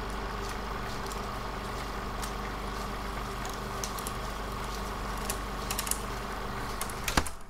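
Vintage-film sound effect: the steady hiss and hum of a worn film soundtrack, with scattered crackles and clicks and a sharper click near the end.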